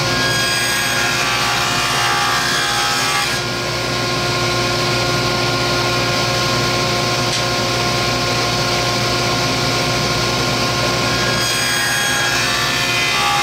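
Table saw running with a ripping blade, cutting a shallow groove along a wooden strip. The sound turns noisier while the blade is in the wood, from about three seconds in to about eleven seconds in.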